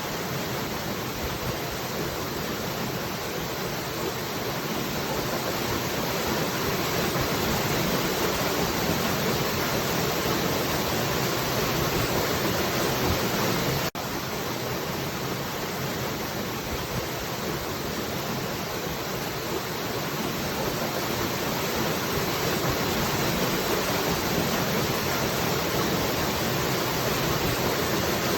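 Falling water: a steady, continuous rushing, with a momentary break in the sound about halfway through.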